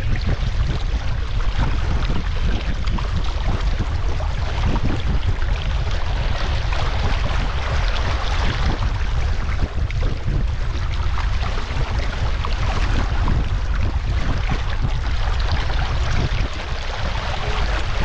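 Water rushing and splashing along the hull of a Wanderer sailing dinghy beating upwind, with wind buffeting the microphone in a heavy, steady rumble.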